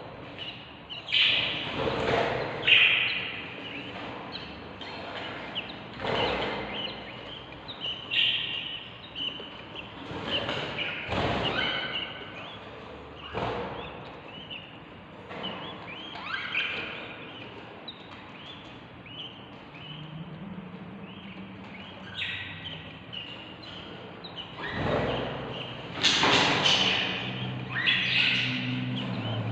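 A brood of baby budgerigars calling to be fed, many short, high, harsh chirps overlapping without pause. Several sharp thuds come in among them, loudest near the end.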